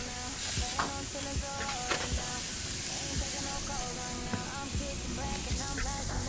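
Steaks sizzling on a hot grill, a steady hiss, with background music playing over it.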